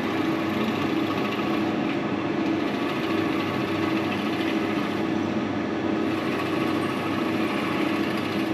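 Wood lathe running steadily with a large drill bit boring into the spinning mixed-wood lamp blank, a constant machine hum with a faint regular pulsing.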